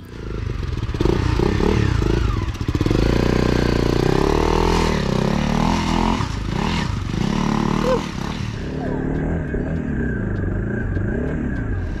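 Single-cylinder Honda CRF dirt bike engine revving up and down unevenly as the bike is ridden over the rocks of a creek bed.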